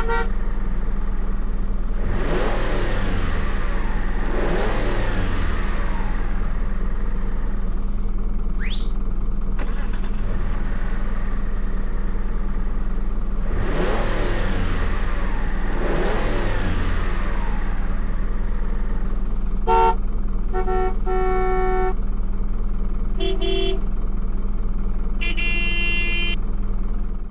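Toy vehicle sound effects: a steady engine drone with several passing whooshes that fall in pitch, a brief rising whistle, then a run of car-horn toots, some short and some held, in the last seven seconds.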